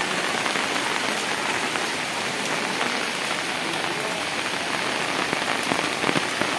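Heavy rain falling steadily, a dense, even hiss of drops striking surfaces.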